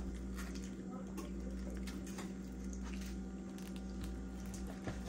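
Raw salmon skin being pulled away from the fillet by hand: soft wet squishing and light rustling with scattered small ticks, one sharper tick near the end, over a steady low hum.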